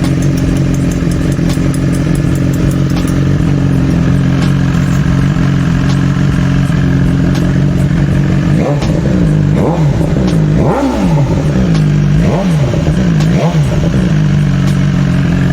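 BMW S1000XR inline-four engine idling steadily on its first start after new camshafts and rocker arms were fitted, then blipped through several quick revs about halfway through before settling back to idle.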